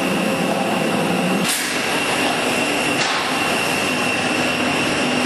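Automatic steel wire mesh welding machine line running: a steady mechanical hum and hiss with a high steady tone, and a knock about a second and a half in and a fainter one near three seconds.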